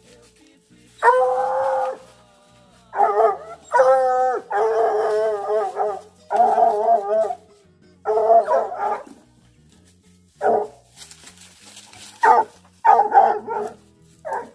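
American Foxhounds baying at a hole under a log: about ten drawn-out, wavering bawls, the longest over a second. Near the end the bays come shorter and choppier. This is the bawl mouth of hounds that have run their quarry to ground.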